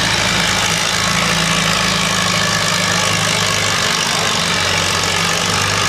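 Antique Farmall tractor's engine running steadily under load as it drags a weight sled through the dirt.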